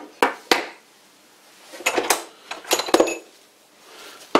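Metal clinking and knocking as a flat steel bar with brass pins is handled and laid down on a wooden workbench: a few sharp clicks at the start, a cluster of clinks and knocks in the middle, and another sharp knock at the very end.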